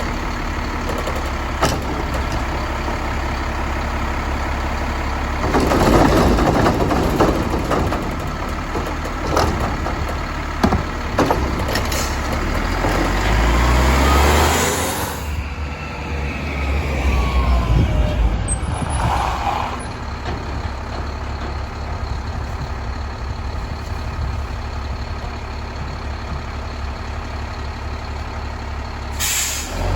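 Mack LEU garbage truck with a Labrie Helping Hand side loader working: the diesel engine runs steadily, with scattered clunks and a loud burst of clatter about six seconds in. The engine revs up around the middle, and a short air-brake hiss comes near the end.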